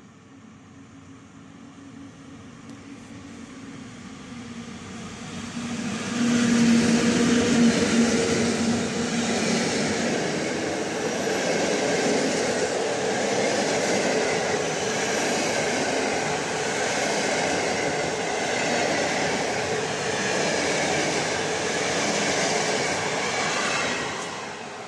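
An Intercity passenger train hauled by an electric locomotive approaches and passes close by. Its rumble builds over about six seconds, with a steady hum as the locomotive goes past. Then comes a loud, even rush of wheels on rails as the coaches go by, which falls away near the end.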